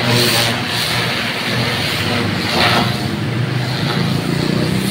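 Pressure washer running steadily, its high-pressure water jet hissing against the concrete pavement over the low hum of the machine. The hiss surges briefly about two and a half seconds in.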